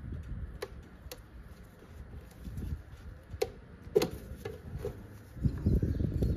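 Scattered sharp clicks and knocks of hands and tools working at hoses and a plastic fitting on a truck engine, over a low uneven rumble that grows louder near the end.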